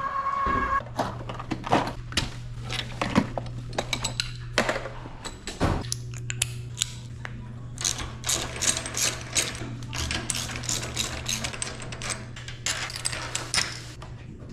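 Bicycle repair work: dense, irregular metallic clicking and ratcheting of tools and drivetrain parts, over a steady low hum.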